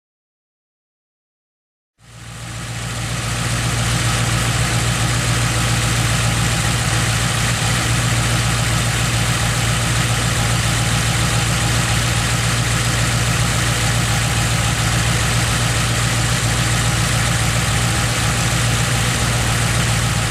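After about two seconds of silence, a Ford Modular 3-valve engine fades in and idles steadily. Its cam phasers are locked out, so the phaser knock is gone.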